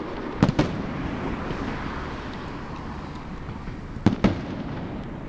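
Fireworks shells bursting overhead: a quick double bang about half a second in and another double bang about four seconds in, with a steady hiss between.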